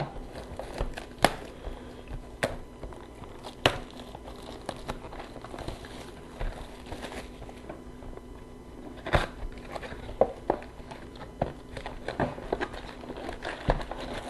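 Plastic wrapping crinkling and crackling as a sealed box of trading cards is unwrapped and opened by hand, with irregular sharp clicks and rustles of cardboard and packs being handled.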